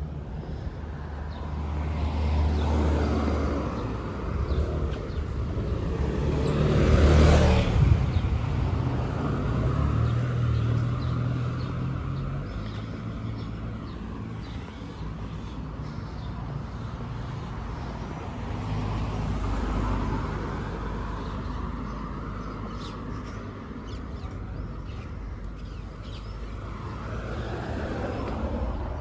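Street traffic: cars driving past, the loudest passing close about seven seconds in and another near twenty seconds.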